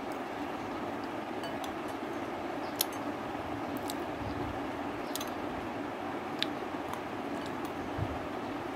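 Faint clicks of a metal spoon during a meal, about five spread over several seconds, over a steady background hum in the room.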